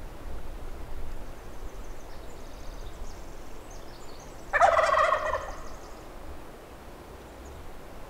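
A Merriam's wild turkey gobbler gobbling once: a loud rattling gobble about four and a half seconds in, lasting about a second.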